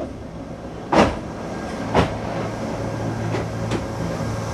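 Dolderbahn rack-railway railcar running past with a steady low hum, slowly growing louder. Its wheels give two loud clunks about a second apart as they cross the track joints at the passing-loop switch, then a few lighter clicks.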